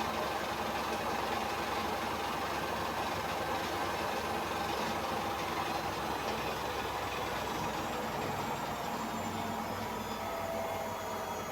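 Samsung AddWash WW70K5410WW front-loading washing machine running its spin and drain cycle: a steady mechanical hum with whirring tones, its pitch shifting a little near the end.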